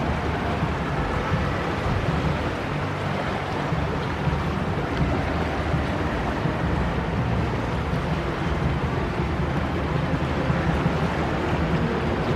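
Steady riverside ambience beside the flooded Seine: a continuous low rumble with rushing noise over it and no distinct events.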